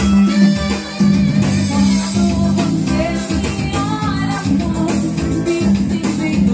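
Live forró music from a band, with a singer's voice over the instruments and a strong, steady low bass note.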